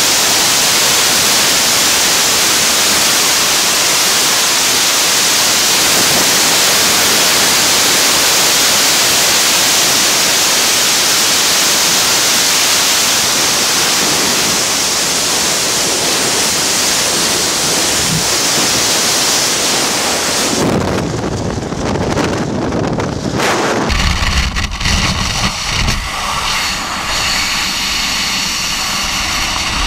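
Freefall wind noise on a skydiver's camera microphone: a steady, hissing rush of air for about twenty seconds, then, about two-thirds of the way through, it turns into a lower, uneven buffeting of wind on the microphone.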